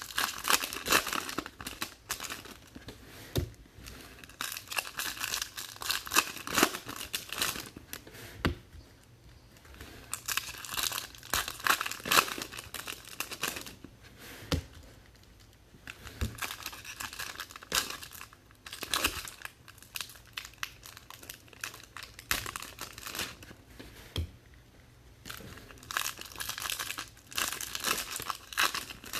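Foil trading-card pack wrappers crinkling and being torn open, in repeated bursts a few seconds long with short pauses between packs.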